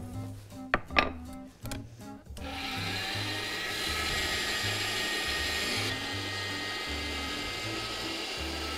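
A couple of sharp knocks on a cutting board, then about two and a half seconds in an electric pasta machine's motor starts and runs steadily with a faint whine, driving its rollers as a sheet of pasta dough is fed through.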